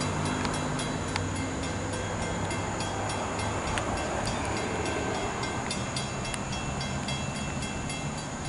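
Long Island Rail Road diesel train's engine running steadily, a low even hum, with a fast regular ticking above it.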